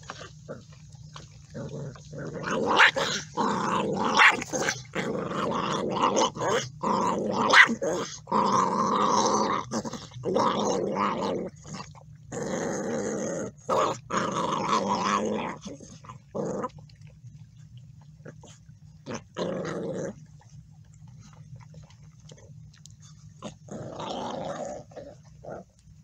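Pit bull puppies growling at one another over a shared food bowl, in rough bursts through the first sixteen seconds or so, then a few shorter ones.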